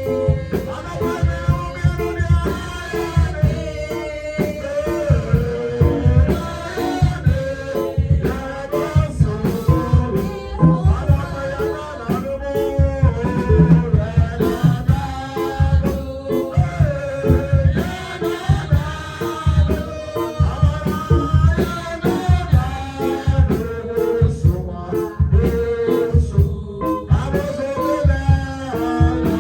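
Music with singing over a steady beat, with guitar and drums.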